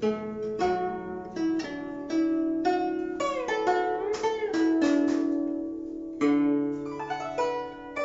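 Guzheng being played: a melody of plucked notes that ring and decay. Around the middle, several notes bend in pitch as the left hand presses the strings behind the bridges.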